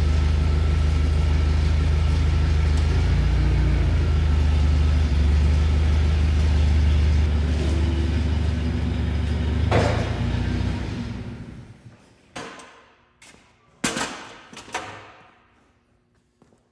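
A machine runs with a loud, steady low hum, then winds down over about two seconds, about ten seconds in. A few sharp knocks follow near the end.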